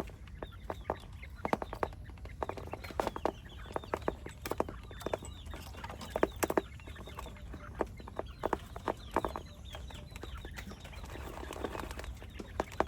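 Chickens clucking among many sharp, irregular taps.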